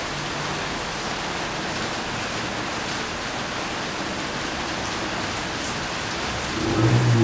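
Steady rain falling, an even hiss. Near the end a louder low rumble sets in over it.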